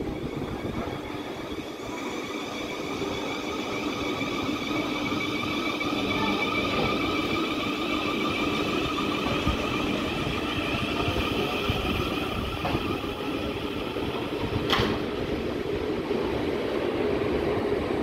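South Western Railway Class 444 Desiro electric multiple unit moving along the platform, its traction motors giving a steady whine of several tones over a low rumble. There is a single sharp click about three-quarters of the way through.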